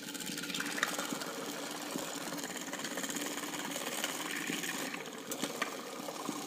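Small Lego electric motor running a gear train, a steady mechanical whir with a constant hum; it starts up at the beginning.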